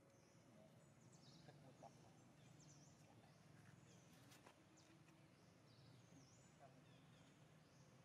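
Near silence: faint outdoor background with short, high bird chirps repeating throughout and a few light clicks.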